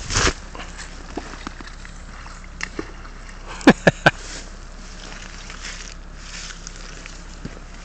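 Steady rush of river water flowing over a gravelly bed, with a brief loud burst at the start and three sharp clicks in quick succession about halfway through.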